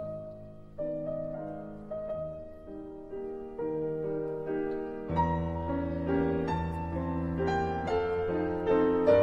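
Background piano music: slow, separate notes that grow fuller and louder with a deeper bass part about five seconds in.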